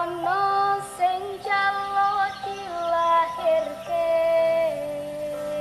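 A woman singing a slow Javanese song, holding each note and stepping from note to note.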